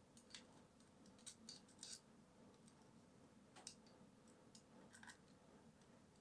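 Faint, scattered clicks and light scrapes of small parts being handled while an airsoft pistol's aluminium slide is reassembled.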